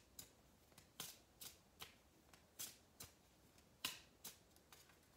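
Lenormand card deck being shuffled by hand, packets of cards slapping down from one hand onto the other: about ten short, faint, irregular card slaps, the loudest about a second in and near four seconds.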